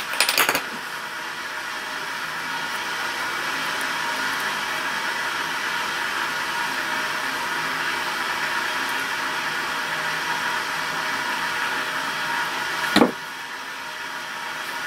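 Steady rushing noise with no speech, with a few clicks right at the start and one sharp click about thirteen seconds in, after which the noise drops a little.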